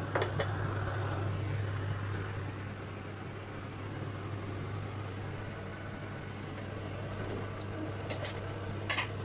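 Spring onion stalks sizzling steadily in oil in a frying pan, over a constant low hum, with a couple of sharp clicks near the end.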